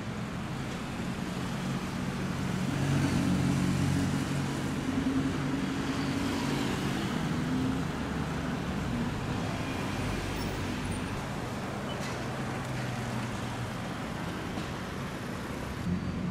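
Lamborghini Huracán's V10 engine running as the car drives past in traffic. It is loudest a few seconds in, then fades into general road traffic noise.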